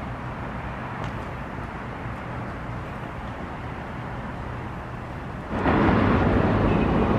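Steady rumbling vehicle noise that becomes clearly louder about five and a half seconds in.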